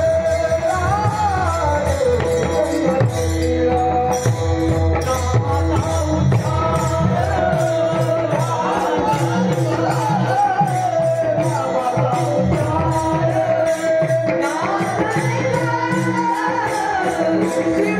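A singer performs a Marathi devotional song with a wavering, ornamented melody over a steady held drone. Drum strokes and an even jingling beat of small cymbals or a tambourine keep time throughout.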